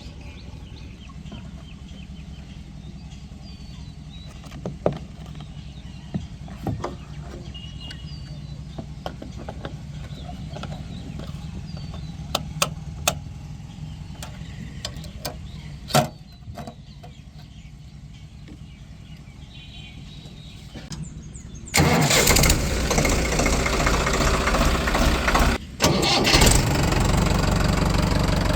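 Engine idling steadily with scattered clicks and knocks. About 22 seconds in, a much louder engine noise starts abruptly, cuts out briefly and then carries on.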